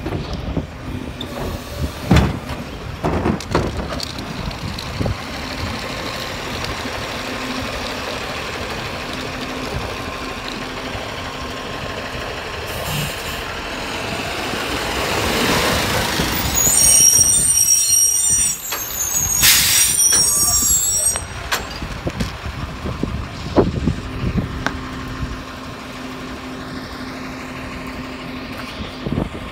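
Garbage truck on a cardboard collection run: the engine runs and swells up about halfway through. Then comes a high squeal and a sharp hiss of the air brakes, followed by a few knocks and a steady idle.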